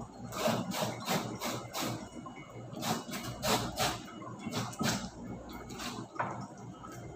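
Hands rubbing and working something on a kitchen sink counter, giving short scraping strokes with light knocks at an uneven pace of about one or two a second.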